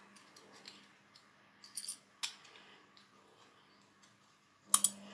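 Small plastic and die-cast metal parts of a Matchbox toy car clicking and clacking as they are fitted together by hand, with two sharp, louder clicks near the end as a piece comes loose.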